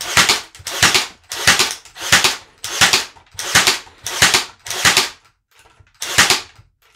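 WORX Nail Force battery-powered 18-gauge brad nailer firing brads into a wooden board in rapid succession. There are about nine sharp shots, roughly one every 0.7 s, with a slightly longer gap before the last.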